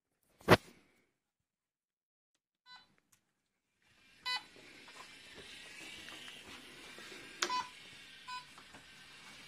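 LEGO Mindstorms EV3 control bricks beeping as they are switched on: a loud sharp click about half a second in, then several short electronic beeps spread through the rest, over a faint steady background noise from about four seconds in.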